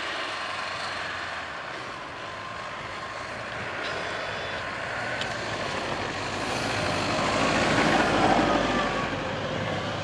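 Toyota Land Cruiser 3.0 turbodiesel driving up a deep-snow trail, its engine and tyres growing louder as it approaches and passes close about eight seconds in, then easing off.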